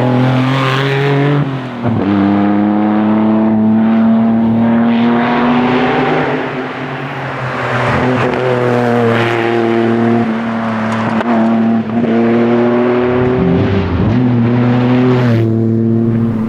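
Lancia Stratos rally car engine under hard acceleration. Its pitch climbs through each gear and drops sharply at the shifts, about four times.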